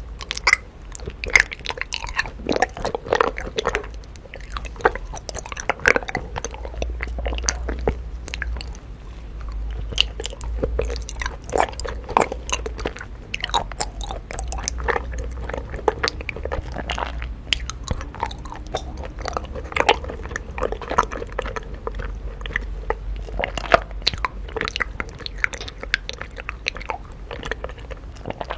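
A person chewing honeycomb in the mouth, making a dense, irregular run of sharp clicks.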